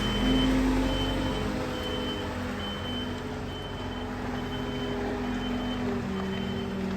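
A farm vehicle's reversing alarm beeping repeatedly, a short high beep a little more often than once a second, over its diesel engine running.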